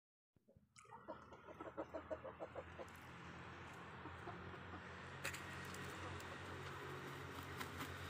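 Aseel rooster clucking: a quick run of short clucks, about four or five a second, over the first few seconds. After that a steady low background hum continues, with a couple of sharp clicks.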